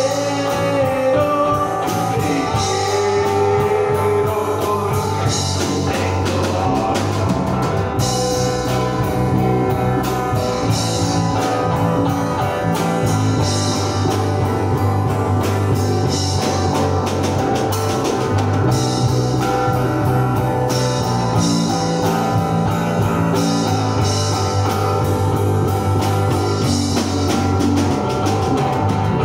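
Live rock band playing: electric bass guitar, acoustic guitar and drum kit, with a steady drum beat and cymbal strokes.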